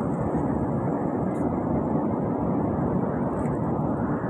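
Steady background rumble and hiss, even in level throughout, with a faint low hum, typical of machinery or a fan running continuously.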